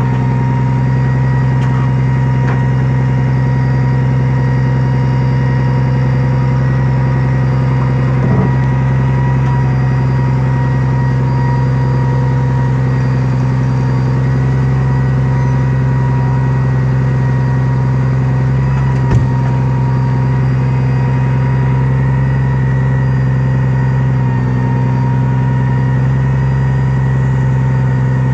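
Log truck's diesel engine running steadily as it drives the truck-mounted knuckleboom loader unloading logs, a constant hum with a strong low tone. Two brief knocks stand out about a third of the way in and again about two-thirds in.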